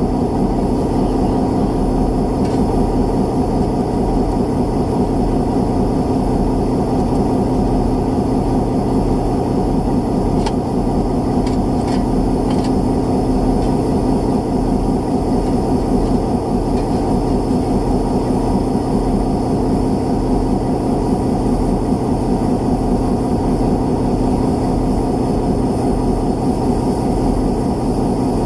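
Diesel locomotive engine idling with a steady low hum. A few light clicks come about ten to twelve seconds in.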